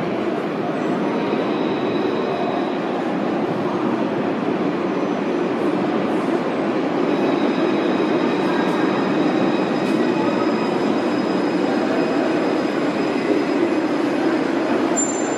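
Alstom Citadis 302 electric light-rail tram running into an underground station platform: a steady rumble that grows a little louder about halfway through as the tram nears, with faint thin wheel squeal over it and a brief high squeal near the end as it draws up.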